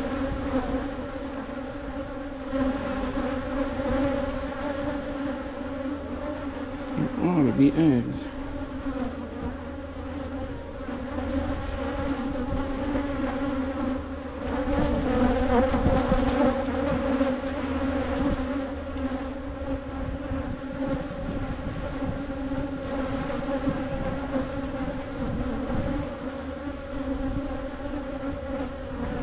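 Agitated honey bees buzzing around an open hive, a steady, pitched hum. About seven seconds in, a louder buzz with a pitch that wavers up and down, like a bee passing close to the microphone.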